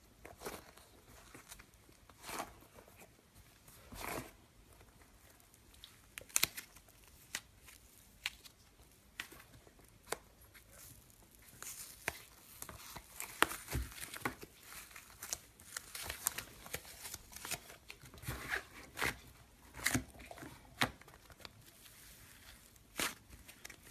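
Slime-filled stress balls being cut open: a string of short, separate cutting, tearing and crinkling sounds, sparse at first and coming faster from about halfway on.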